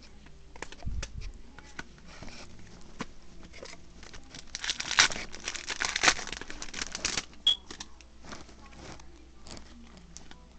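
Foil booster-pack wrapper crinkling, loudest in the middle, with small taps and flicks of trading cards being handled before and after. A short high squeak follows the crinkling.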